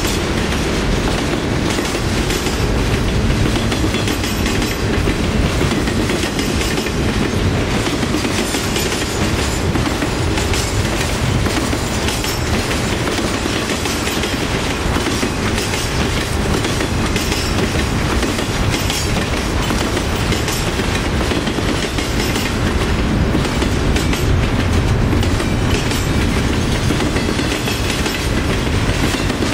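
Freight cars of a passing train, autoracks and double-stack container well cars, rolling by close: a steady rumble of steel wheels on rail with clicking and clacking over the rail joints.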